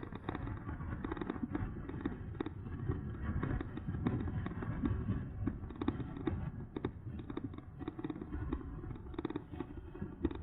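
Riding noise of an e-bike on the move: wind buffeting the microphone in a rough, uneven rumble, with frequent crackling clicks and rattles from the bike going over the ground.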